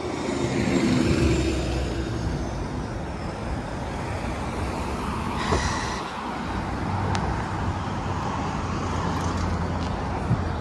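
Hybrid-electric city bus pulling past close by, swelling in the first couple of seconds, then steady traffic noise from cars on a busy multi-lane road.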